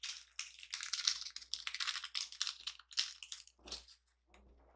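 Small plastic ramen topping sachets crinkling as they are handled, a dense run of crackles that stops about three and a half seconds in, with a few softer handling sounds near the end.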